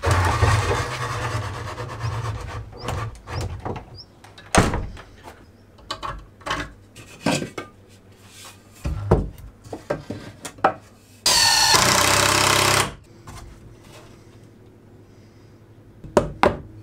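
Wooden rack parts being handled and knocked against the wall and a spirit level, a string of short knocks and clicks, with a noisy rustle in the first two seconds. A little past the middle comes one loud, steady noise lasting about a second and a half.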